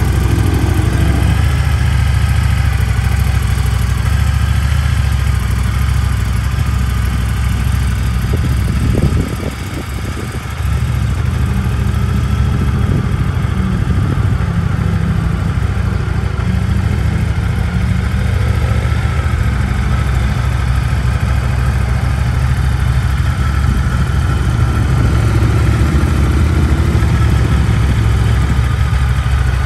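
Indian FTR1200's V-twin engine idling steadily with a low rumble, dipping briefly about nine seconds in.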